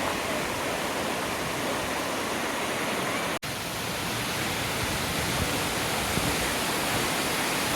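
Steady rush of a waterfall, Bridal Veil Falls, crashing down its rock face. The sound breaks off for an instant about three and a half seconds in, then carries on at the same level.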